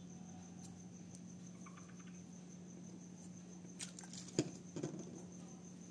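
Faint scratching and rustling of a nail-art brush wiped clean on a lint-free gel wipe, then a few light clicks and one sharper knock between about four and five seconds in as a bottle is picked up from the desk, over a faint steady hum.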